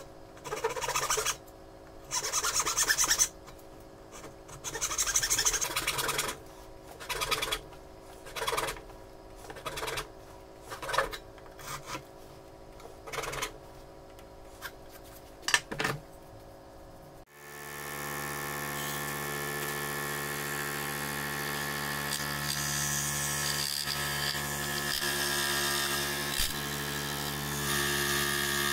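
Hand sawing a small wooden block with a Veritas backsaw, in separate runs of rasping strokes, longer at first and then shorter. About 17 seconds in this gives way to a scroll saw running steadily with a motor hum while a thin piece of wood is fed to its blade.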